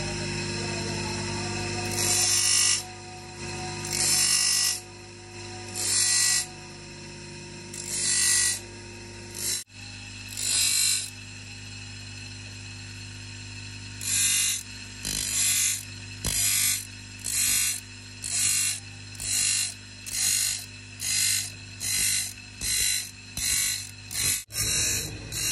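Repeated rasping strokes of a hand tool working the steel blade of a rusted hand saw. The strokes come about one every two seconds at first, then quicken to more than one a second from about halfway, over a steady low hum.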